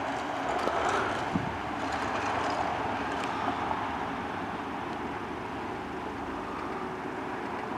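Steady distant vehicle noise, an even hum that fades slightly toward the end.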